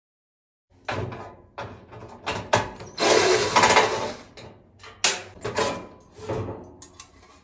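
Sheet-metal clanks, knocks and scraping as a dryer's heating-element assembly is worked loose and slid out of its housing, starting just under a second in. A longer, louder scraping noise runs from about three seconds in for about a second.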